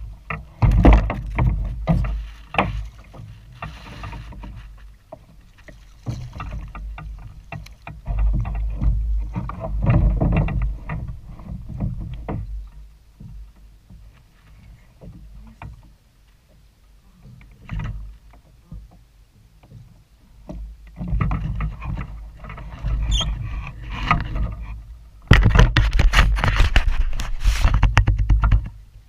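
Water sloshing against a kayak hull, with scattered knocks and rattles; it comes and goes, quieter through the middle and loudest near the end.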